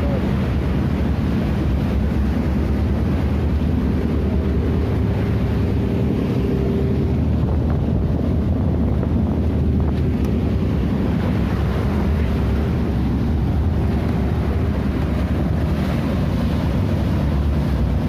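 Motorboat under way in rough seas: the engine runs steadily at speed under strong wind buffeting the microphone and the wake churning behind the stern.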